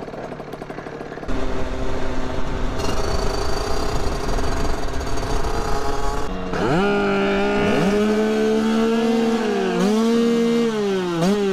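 Two-stroke moped engine, a Beta Track with a 70 cc top end and Most expansion pipe, running under the rider. From about six seconds in it revs high with a clean, steady buzz that climbs slowly, then dips in pitch twice near the end.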